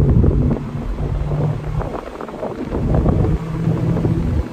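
A 2022 Mazda MX-5 Miata RF's 2.0-litre four-cylinder engine with a new aftermarket exhaust, running under way as heard from inside the cabin. Its steady note drops away briefly about halfway, then comes back. Heavy wind buffeting on the microphone runs over it.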